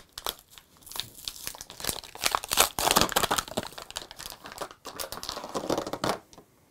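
Plastic blister packaging being torn off its cardboard backing card and crinkled by hand. A dense run of crackling, loudest about halfway through, stops shortly before the end.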